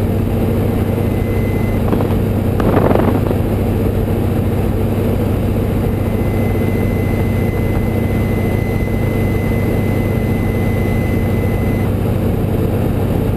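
Boeing Stearman biplane's radial engine running steadily at reduced power, throttled back for a stall, with wind rushing through the open cockpit. A brief louder rush comes about three seconds in.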